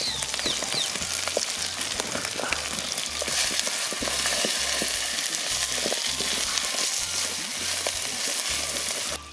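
Goat leg pieces frying with onions in hot oil in a large pot, a steady sizzle full of small crackles and spatters. The sound drops away suddenly just before the end.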